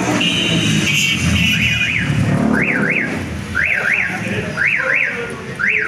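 Electronic alarm, likely a vehicle alarm: a steady high beep for about two seconds, then a quick double up-and-down warble repeating about once a second, over low street rumble.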